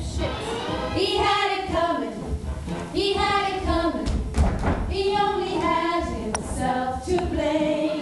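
A women's chorus singing in short phrases about every two seconds over backing music, recorded live in a theatre, with one thump about halfway through.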